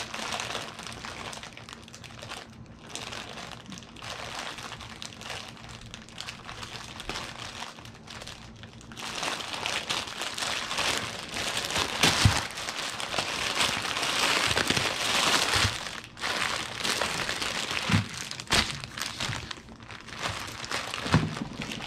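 Plastic wrapper of a five-pack of instant ramen crinkling as it is pulled open and the packets are worked out, louder about halfway through, with a few soft knocks as packets meet the counter.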